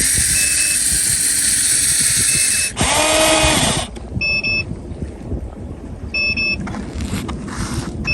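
A loud hissing rush for about two and a half seconds, then a brief whine that rises and falls in pitch, followed by short electronic beeps repeating about every two seconds.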